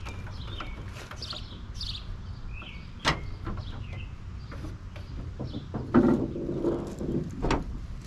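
Ford pickup's hood being opened. The latch releases with a sharp click about three seconds in, then the unlubricated hood hinges creak as the hood is raised, ending with a sharp knock near the end. The hinges' noise is the sign that they have gone dry.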